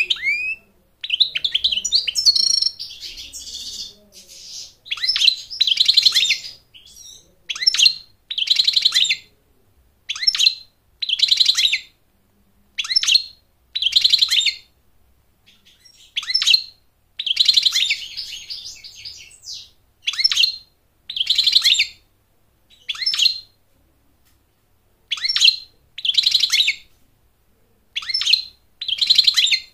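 European goldfinch singing: a string of short, rapid twittering phrases, each about a second long with brief gaps between them, and longer unbroken runs of song near the start and again about two-thirds of the way in.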